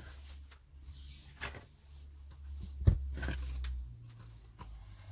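Cotton fabric rustling and sliding as it is folded over and smoothed down by hand on a tabletop, with scattered light taps and one sharp knock about three seconds in.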